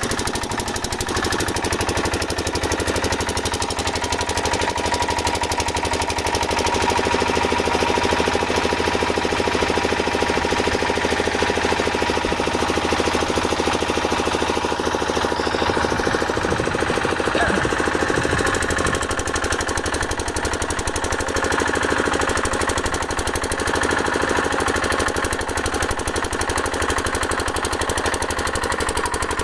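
An engine running steadily with a fast, even knocking chatter and a low hum throughout.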